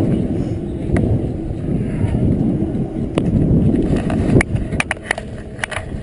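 Wind buffeting a helmet-camera microphone, dying down over the first couple of seconds as the parachutist lands, followed by scattered sharp clicks and knocks of parachute gear and harness, thickest near the end.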